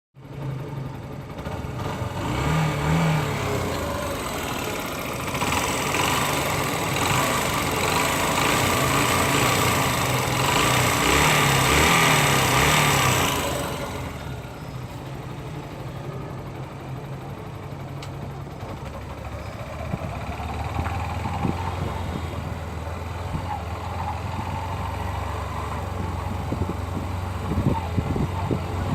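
Yamaha YBR 125's single-cylinder four-stroke engine running, revved up and louder for the first half, then settling back to a steadier, quieter run about halfway through. The owner considers this engine noise a fault that began after a dealer service; Yamaha calls it the engine's normal sound.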